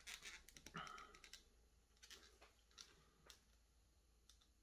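Faint scattered clicks and soft rustles of handling, densest in the first second and a half and then sparse.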